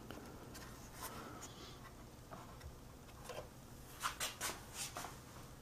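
Faint handling noises from a plastic model boat being set down on a diorama base: light clicks and scratchy rubs, then a quick run of four louder scrapes about four seconds in.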